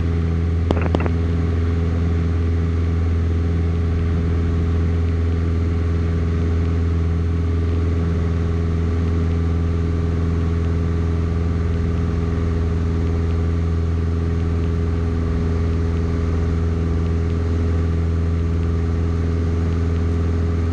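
Single-engine propeller plane's piston engine and propeller at takeoff power, a steady deep drone heard inside the cockpit through the takeoff roll, liftoff and initial climb.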